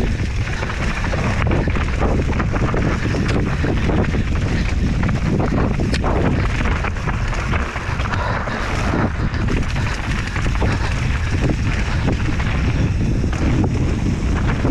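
Mountain bike riding fast down a rocky trail: wind buffets the camera microphone in a steady rumble while the tyres and frame clatter over stones in many quick knocks.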